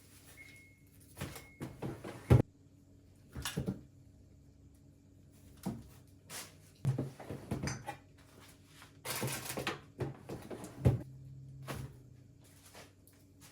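Food containers and packages being put onto refrigerator shelves: scattered knocks and clicks, with a stretch of plastic rustling a little past the middle. The loudest knock comes about two seconds in.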